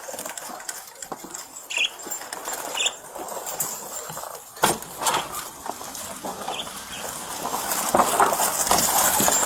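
Pet birds giving a few short, high chirps and fluttering, amid rustling and clattering handling noise, with one sharp knock about halfway through.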